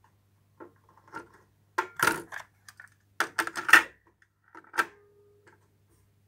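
Sony TC-V30 cassette deck being handled: clusters of plastic clicks and clatter as the cassette door opens and closes and a cassette is taken out and pushed back in, loudest between three and four seconds in. A last click near five seconds is followed by a brief steady tone.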